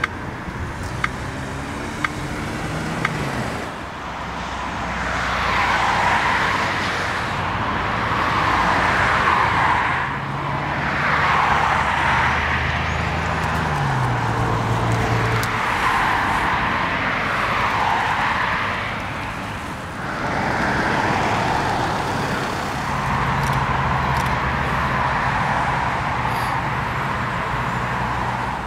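Road traffic: cars passing one after another, their tyre noise swelling and fading every couple of seconds, over a low steady engine hum.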